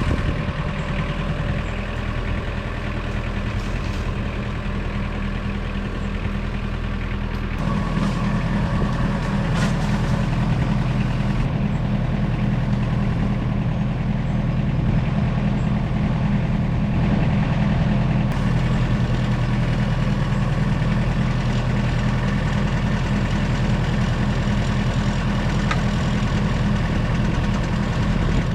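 Tractor engine running steadily; about eight seconds in it picks up, a little louder and fuller.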